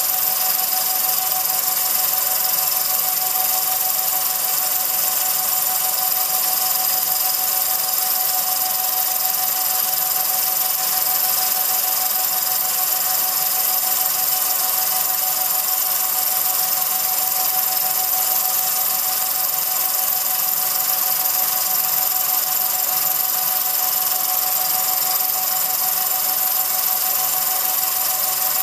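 Home-movie film projector running: an even mechanical hum with a few steady high tones, unchanging throughout.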